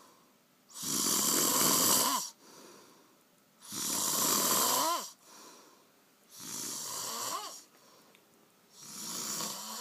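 A man snoring heavily in a drunken sleep: four loud rasping snores about every three seconds, each ending in a short squeak that rises and falls in pitch, the last two softer.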